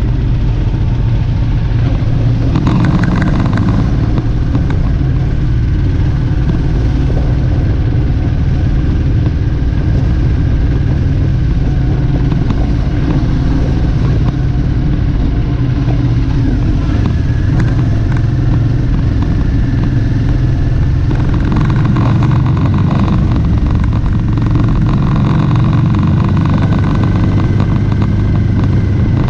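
Motorcycle engine running steadily at cruising speed, heard from on the bike, under a constant rush of wind and road noise.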